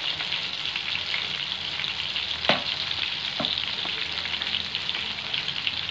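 Prawns deep-frying in hot oil, a steady crackling sizzle, as a metal slotted skimmer stirs them. A few short knocks of the skimmer against the pan, the loudest about two and a half seconds in.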